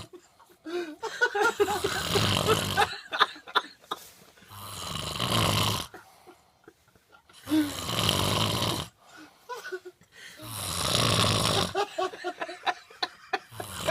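Loud snoring, one long snore about every three seconds, with short squeaky sounds between the snores.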